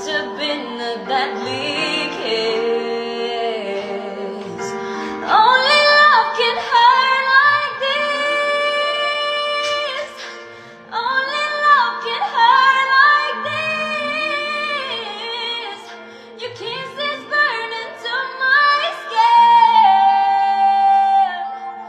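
A woman singing long, held notes with vibrato over a steady accompaniment, with a short break about ten seconds in.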